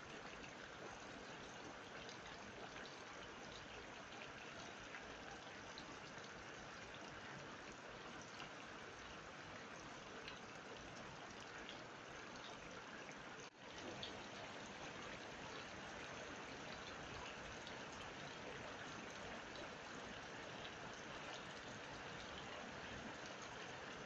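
Steady heavy rain pattering on a waterlogged yard, mixed with rainwater spilling from a drain pipe into the puddle. The sound drops out for a moment a little past halfway, then carries on.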